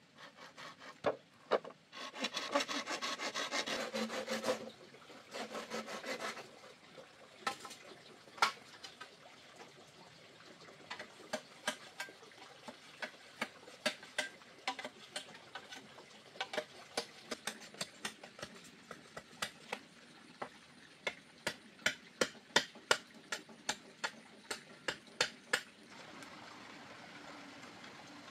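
Hand tool scraping or rasping on wood in two short spells, then a long run of sharp knocks: scattered at first, then coming about twice a second near the end.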